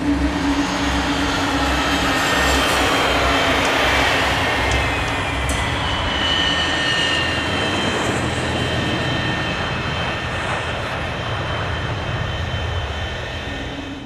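Sound effect of a jet airliner's engines at takeoff power: a steady rushing noise with whining tones that slide down in pitch a few seconds in. The sound slowly fades near the end.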